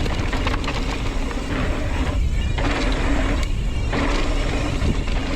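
Mountain bike ridden fast on a dirt trail: heavy wind buffeting on the camera microphone, with tyre noise and rattling and clicking from the bike over rough ground. The rattle eases briefly twice, about two seconds in and again about three and a half seconds in.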